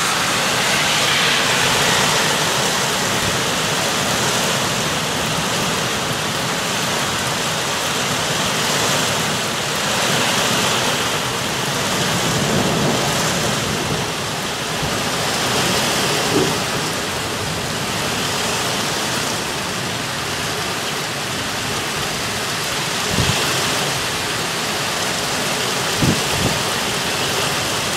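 Heavy rain pouring steadily during a thunderstorm, its level swelling and easing, with a few short sharp taps in the second half.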